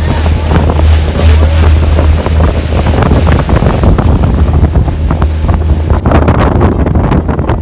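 Heavy wind buffeting the microphone aboard a small open motorboat running at speed, with water splashing and hissing along the hull. A rougher stretch of splashing comes near the end.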